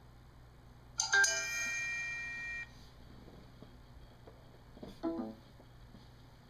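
A short electronic chime about a second in: two quick notes held as a steady multi-tone sound for a second and a half, then cut off sharply. It comes as the rebooting phone drops its USB connection to the computer.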